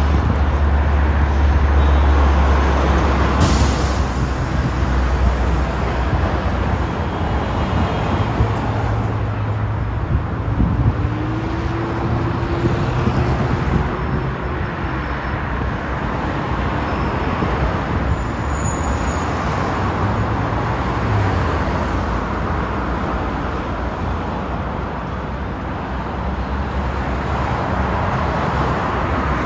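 Steady traffic noise from a busy multi-lane city highway: a continuous rush of cars and buses passing. A heavy low engine rumble is loudest in the first few seconds, and one vehicle's engine tone rises slightly and holds for a few seconds around the middle.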